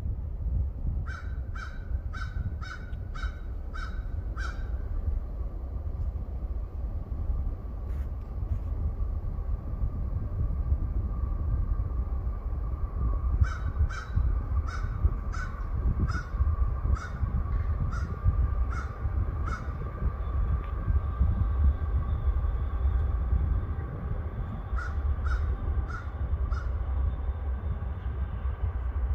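Crows cawing in three runs of quick repeated caws, about two a second: a run of about seven near the start, a longer run of about ten in the middle, and a few more near the end. A low steady rumble runs beneath.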